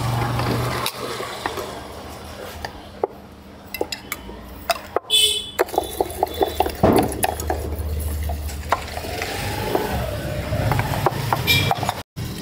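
A steel spoon clinking and scraping against a small steel bowl as masala chaat is stirred and mixed, in quick runs of light clinks.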